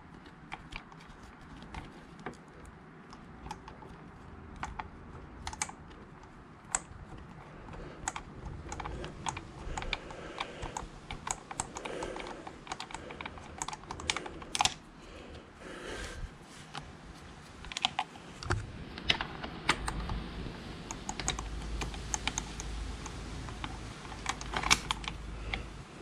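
Fingers winding a rear brake caliper mounting bolt out of a Honda VFR800 caliper by hand: a run of small, irregular clicks and taps of skin and metal close to the microphone. A low rumble joins in during the last few seconds.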